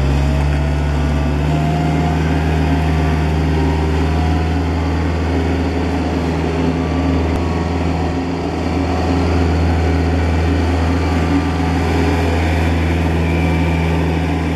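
Diesel engine of a 2005 Ingersoll Rand BL-370D loader backhoe running steadily, its note stepping up slightly about a second and a half in and easing briefly near the middle.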